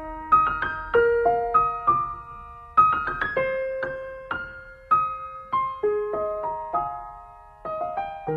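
Solo piano playing the closing bars of a sped-up pop ballad: a gentle melody of notes struck one or a few at a time, each ringing and fading away.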